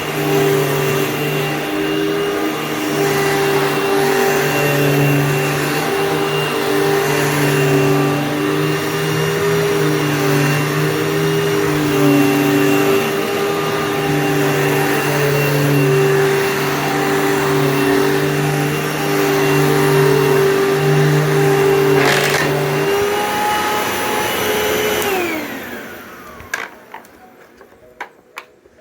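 Hoover Fold Away upright vacuum cleaner running steadily with a constant motor hum and whine. Near the end it is switched off and the whine falls away as the motor winds down, followed by a few light clicks.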